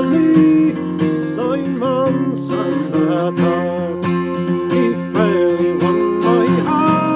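Acoustic guitar playing an Irish folk tune, with a melody line above it that slides and bends between notes.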